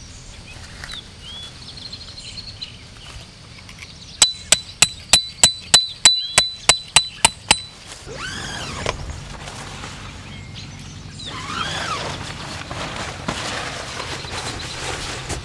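A hammer driving a tent peg into the ground: about a dozen sharp strikes, about three a second, each with a short metallic ring, starting about four seconds in and stopping near the eight-second mark.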